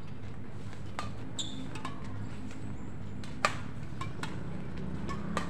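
A badminton rally: sharp cracks of rackets hitting the shuttlecock about once a second, the loudest about three and a half seconds in, over a steady low hum. A brief high squeak about one and a half seconds in.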